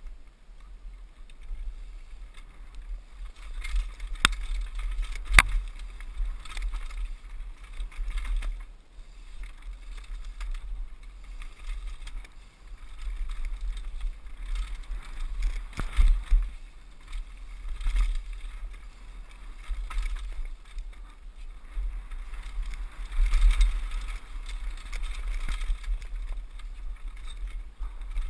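Mountain bike running fast down a dirt trail: wind buffeting the helmet camera's microphone as a steady rumble, with tyre and drivetrain rattle and sharp knocks as the bike hits bumps, clearest about four and five seconds in and again around sixteen and eighteen seconds.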